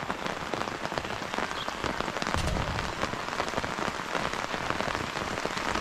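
Heavy rain falling steadily, a dense hiss of countless drop impacts. A brief low rumble comes about halfway through.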